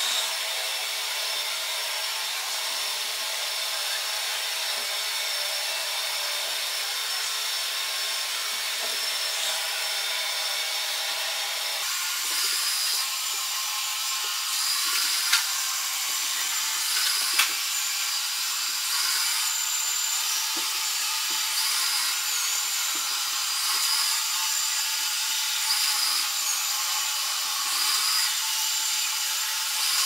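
Xiaomi Mi Robot Vacuum Mop Essential running on a tile floor: a steady high-pitched whir of its suction fan and brushes. About twelve seconds in the sound changes, with a pulsing in the highs roughly every second and a half and a couple of sharp clicks.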